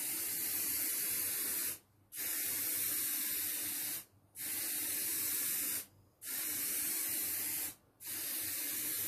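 Aerosol spray-paint can hissing in five bursts of about two seconds each, with short pauses between, as a dark second coat is sprayed over a white-painted board.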